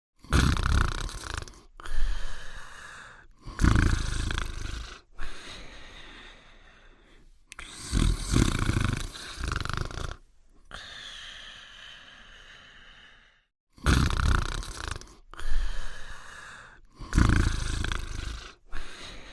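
Cartoon dog snoring sound effect: about seven loud snores with quieter breathing stretches between them, broken by abrupt cuts.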